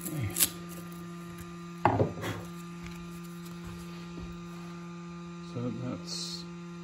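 Cut plastic parts being pried free of a chopping-board sheet with a hand tool: a click, then a sharp snap and knock about two seconds in. Under it runs a steady low electrical hum.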